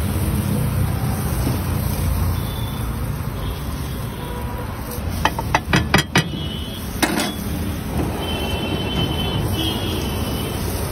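Steady low rumble of a busy street stall, with a quick run of about six sharp metallic clicks about halfway through and another shortly after: a metal spatula knocking on the flat iron griddle (tawa) as the kulchas are turned.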